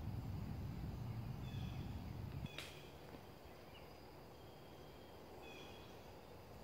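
Faint outdoor ambience. Short high chirping calls recur every second or so over a low rumble, which cuts off with a single click about two and a half seconds in.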